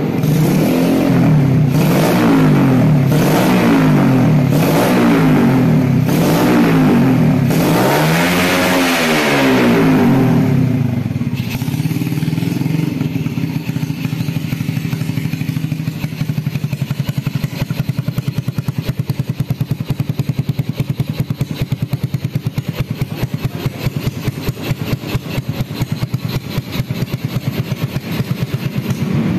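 Yamaha Vega R New's single-cylinder four-stroke engine blipped through a racing exhaust packed with sand in place of glasswool: about eight quick revs, the last one highest, then it settles into a steady idle. The exhaust note is a bit fierce.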